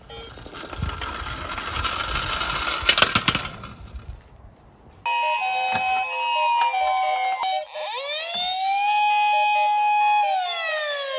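Toy minicars clattering and rolling down a slope for about four seconds, with a few sharp clicks near the end of the run. Then a siren sound effect cuts in: a two-tone hi-lo ambulance siren, followed by a wail that rises, holds and falls away.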